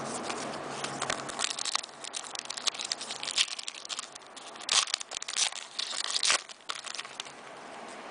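Silver foil trading-card pack crinkling and being torn open by hand: a run of crackles and rips, loudest a little past the middle.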